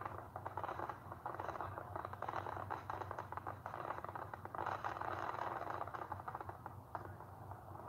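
Fireworks crackling and popping in a dense, continuous crackle, a little stronger about halfway through, played through a screen's small speaker and picked up in a room.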